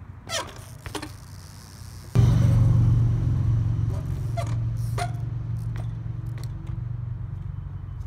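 A 20-inch trials bike hopping on asphalt, with sharp knocks as the tyres land, several times. About two seconds in, a loud steady low hum starts suddenly and slowly fades; it is the loudest sound.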